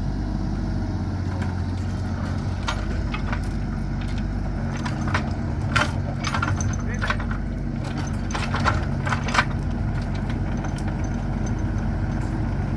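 An engine running steadily, with scattered light metallic clinks and knocks.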